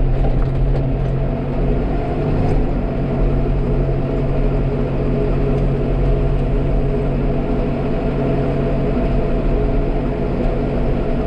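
Farm tractor engine running steadily under load while pulling a disc harrow through ploughed soil.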